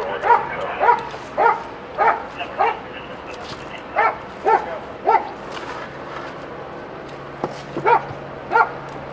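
A dog barking repeatedly, about two barks a second, with a pause of about three seconds before two more barks near the end.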